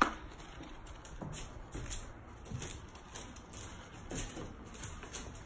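Soft, uneven footsteps of a dog and a person going down concrete stairs: light taps and ticks from paws and shoes, about one every half second.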